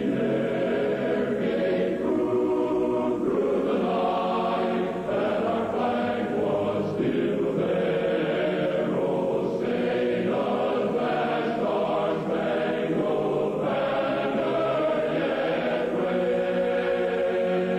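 A choir singing slow, sustained chords: the station's closing national anthem.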